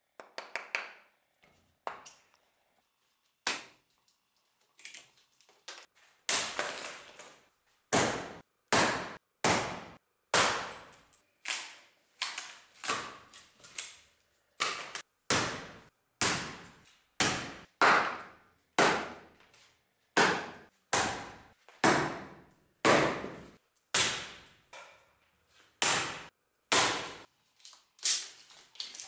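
Bearded axe chopping wood on a stump chopping block: a few scattered knocks, then a steady run of sharp strikes about one a second, each with a short ringing tail.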